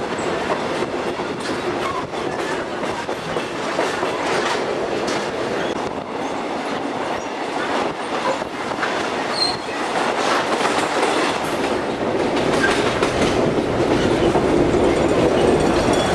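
Passenger train running along the rails, heard from inside the carriage: a steady rumble with wheels clicking over rail joints. A brief high wheel squeal comes about nine seconds in.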